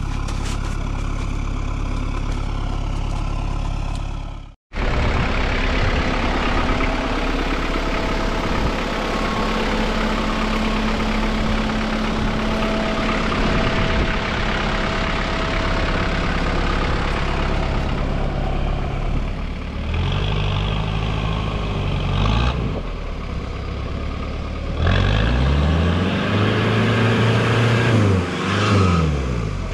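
Daihatsu Rocky 4x4's engine running while driving through icy mud and water, revving up and down repeatedly over the last ten seconds, with water splashing near the end.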